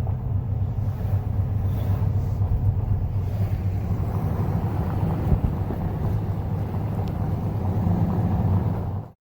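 Steady road and engine noise of a moving vehicle, heard from inside as it drives along; it cuts off abruptly about nine seconds in.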